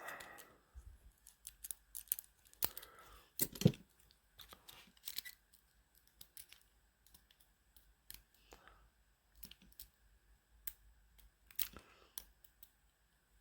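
Lock pick and tension wrench working the pins of a Master padlock: scattered light metallic clicks and scrapes, with a few sharper clicks.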